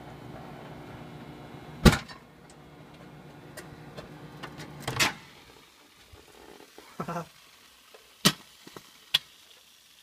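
Microwave oven running with a steady hum, broken about two seconds in by a sharp, loud bang as an egg bursts inside it. A few small pops follow, then a second loud pop about five seconds in, after which the hum stops; scattered clicks and knocks come later.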